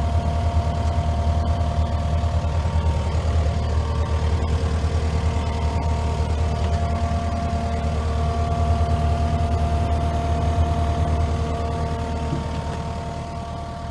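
Kubota V3800 four-cylinder diesel engine of a Kubota SVL75-2 track loader running steadily, a deep hum with a thin steady whine above it, easing off slightly near the end.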